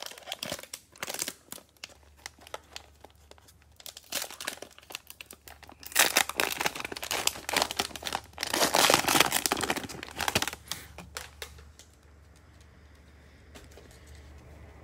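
Plastic wrapper of a Prizm football card pack crinkling and tearing as it is pulled open and the cards are drawn out, with scattered crackles at first and two loud spells of crinkling about six and nine seconds in.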